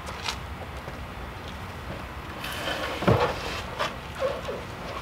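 Camping gear being handled in a car trunk: a few light knocks, and a rustling scrape about three seconds in.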